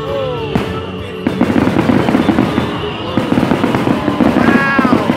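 Aerial fireworks going off: a dense barrage of shells bursting and crackling in rapid succession, starting about a second in.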